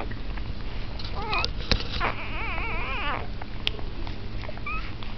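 Newborn bullmastiff puppy whining while it struggles to nurse: a short high cry about a second in, then a longer wavering whine lasting about a second, and a brief squeak near the end. A sharp click just before the long whine.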